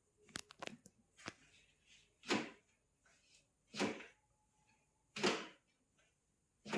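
Hands working a patient's back during manual therapy: a few sharp clicks near the start, then four short rubbing or pressing swishes about a second and a half apart, in a regular rhythm of mobilisation strokes.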